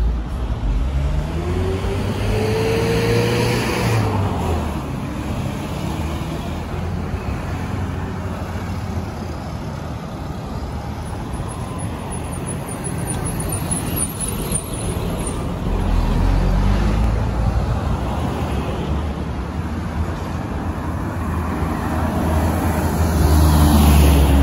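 Road traffic driving past on a busy street: cars and a truck going by, their engine hum rising and falling with each pass-by over a steady road noise, loudest near the start and again near the end.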